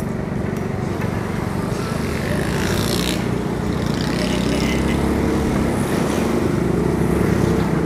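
A motor vehicle's engine running steadily while driving through town street traffic, with road noise; a brief rushing sound, like a passing vehicle, comes about three seconds in.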